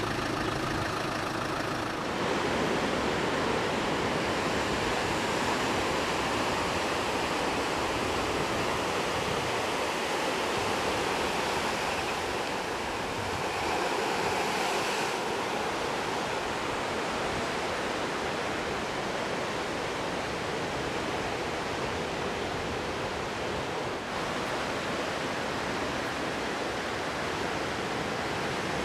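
A vehicle engine idling for about the first two seconds, then the steady rushing wash of ocean waves breaking on a rocky beach.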